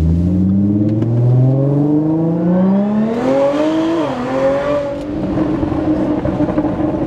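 Audi SQ5's supercharged 3.0-litre V6, running an ethanol-blend tune, accelerating hard, heard from inside the cabin: the engine note climbs steadily for about four seconds, drops quickly as the gearbox shifts up, climbs again, then levels off.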